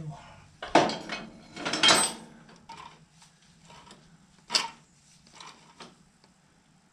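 A few sharp metal clanks and clicks from hand work on a tractor's throttle linkage, parts and tools being handled. The two loudest come about one and two seconds in, and a lighter one just before the five-second mark, over a faint steady hum.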